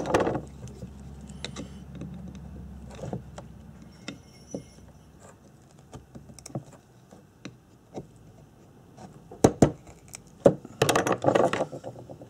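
Scattered small metallic clicks and taps of needle-nose pliers and a pick working against a motorcycle ignition stator's coils and steel core while prising a jammed wire out. A few sharper knocks and a short rattle come near the end.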